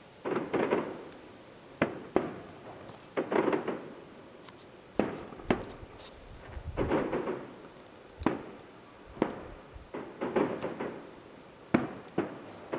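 Fireworks display heard from about a mile away: a string of sharp shell bursts, roughly one every second or so, mixed with rolling, crackling salvos that each last about a second.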